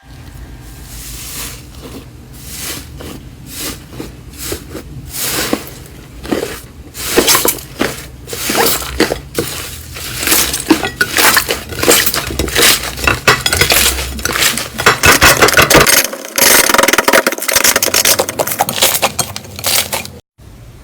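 Slime being squeezed and pressed by hand, making many sticky crackles and pops that grow louder after several seconds.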